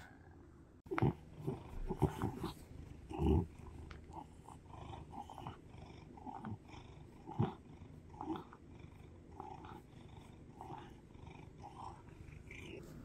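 Brown tabby cat purring close up while being stroked on the head, a steady low rumble with soft repeated pulses. A few loud rubbing bumps from the hand and fur near the start.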